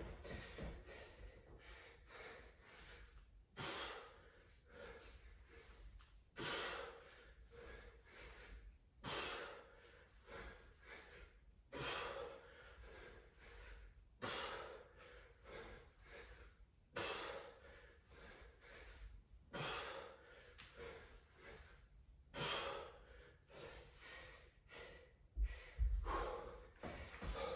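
A man breathing hard from exertion, with a sharp, forceful exhale about every two and a half to three seconds, eight in all, one with each alternating dumbbell snatch rep. Near the end comes a thud as the dumbbell is set down on the floor.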